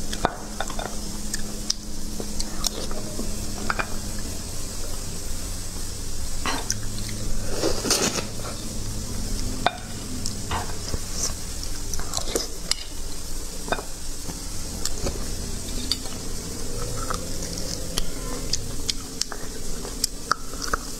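Metal spoon clinking and scraping against cooked beef marrow bones and a plate, a string of scattered sharp clicks over a steady high hiss.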